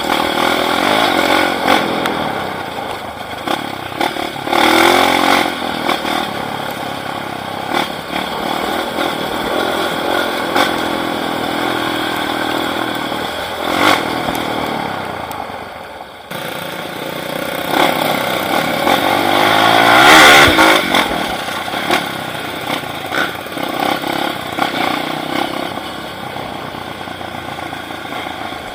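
Off-road trail motorcycle engine running and revving up and down as it rides. There is a brief drop near the middle, and the loudest rev comes about two-thirds of the way through.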